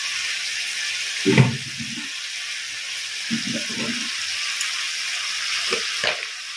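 Onion-and-water masala simmering and sizzling in a kadai over a gas flame: a steady hiss. A knock about a second in, the loudest sound, and a few softer knocks later.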